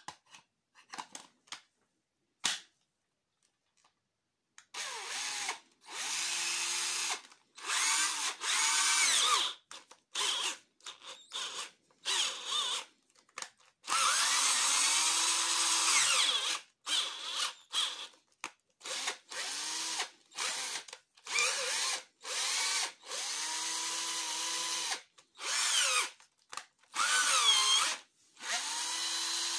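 A few light clicks and taps, then from about five seconds in an 18-volt cordless drill's motor run in many short trigger bursts, its whine speeding up and slowing down as the trigger is squeezed and let off. The drill is running on a battery just charged from a 24-volt charger through a diode.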